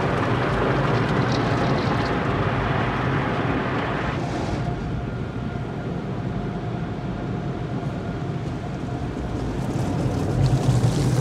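Automatic tunnel car wash heard from inside the car: water and foam spray hit the windshield with a dense hiss. About four seconds in the hiss drops away to a quieter stretch with a faint steady hum. Near the end it grows louder again with a low rumble as the wash brushes work along the side of the car.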